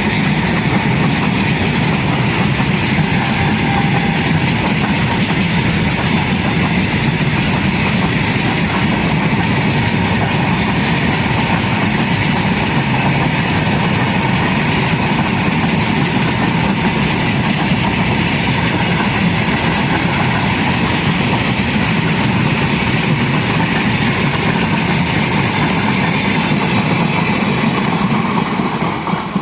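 A freight train rolling past on the track, running steadily and loud, then falling away about a second before the end.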